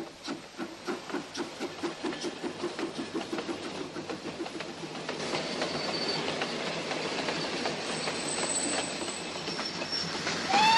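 Gauge 1 tinplate toy train rolling on metal track: its wheels click over the rail joints and points about five times a second, then settle into a steady metallic rolling rattle with a faint high squeal now and then.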